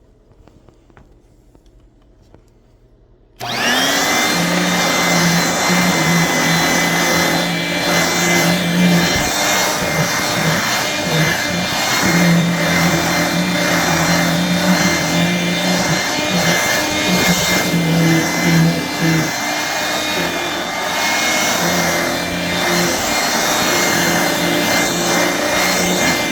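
1985 Hoover Brush Vac hand vacuum with an indirect-air motor, switched on about three and a half seconds in. Its motor whine rises quickly to speed, then it runs steadily while its low hum comes and goes as it works.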